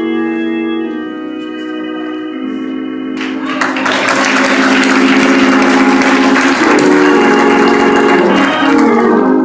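Organ holding sustained chords that shift slowly. About three seconds in, applause breaks out over it and lasts about six seconds, then stops.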